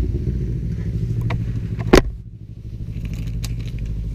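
Motorcycle engine idling steadily, with one sharp knock about halfway through.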